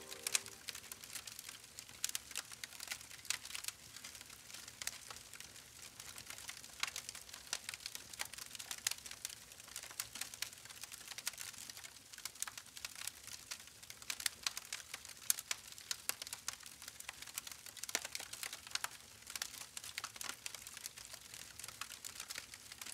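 Campfire crackling: a steady run of small irregular snaps and pops, with a few sharper cracks standing out.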